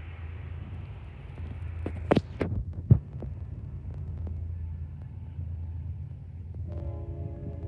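A steady low rumble, with a few sharp knocks about two and three seconds in, the last the loudest sound here; near the end a distant locomotive's horn sounds again as a steady multi-note chord.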